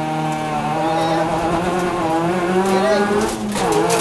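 Ford Fiesta ST rally car's engine pulling hard under acceleration, heard from inside the cabin; the engine note climbs about two seconds in and dips briefly for a gear change shortly before the end.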